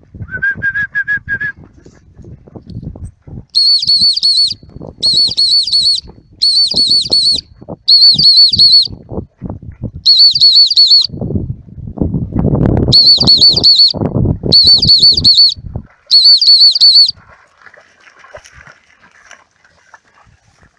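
Trilling dog whistle (pea whistle) blown in about eight short blasts of about a second each, calling a young Deutsch Drahthaar back across the water with its retrieve. A shorter, lower trilled note comes at the start, and low rumbling noise sits between the blasts.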